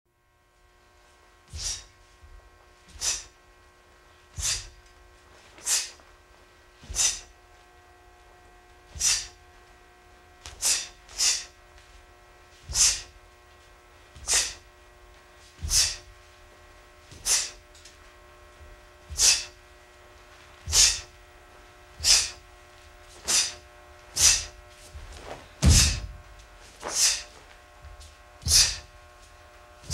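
About twenty short, sharp exhalations through the nose and mouth, one with each technique of a Taekwon-Do pattern, roughly one every second and a half, with a pair closer together twice. A faint steady hum runs underneath.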